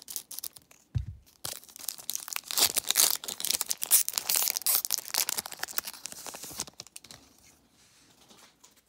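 Foil trading-card pack torn open by hand: a crinkling rip of the metallic wrapper over several seconds, loudest in the middle, with a soft thump about a second in and fainter rustling near the end.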